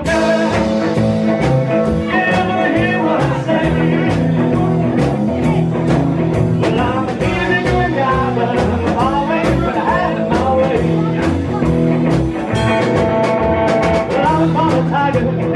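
Live rock and roll band playing: electric lead guitar over acoustic rhythm guitar and drums with a steady cymbal beat, the singer's voice coming in at times.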